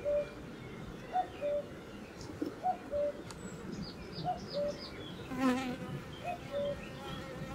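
Honey bees buzzing around an open hive, with one bee flying close past about two-thirds of the way through. A bird repeats a two-note call, a higher note then a lower held one, about every second and a half.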